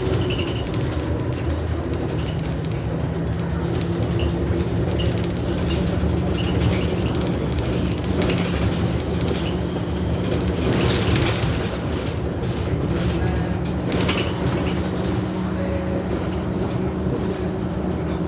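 Cabin sound of a single-decker bus in motion: the engine and road give a steady low drone with a constant tone, and body panels and fittings rattle and click throughout, louder in spells.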